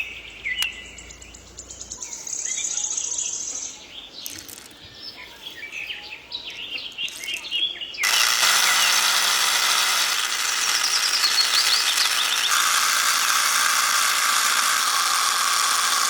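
Birds chirping in short high calls, then about eight seconds in a loud, steady hiss starts abruptly and takes over to the end.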